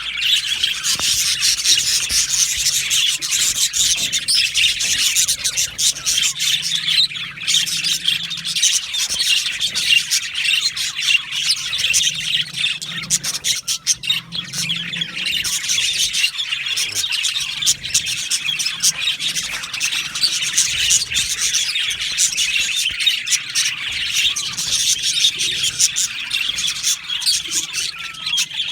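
A flock of budgerigars chattering, a dense, continuous mix of quick, overlapping high chirps and warbles.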